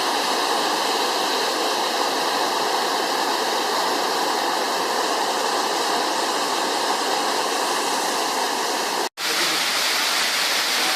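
Waterfall: a steady rush of falling water that cuts out for an instant about nine seconds in, then carries on unchanged.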